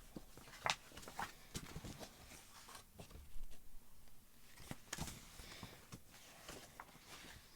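Faint paper rustling and light handling clicks as the pages of a large booklet are turned.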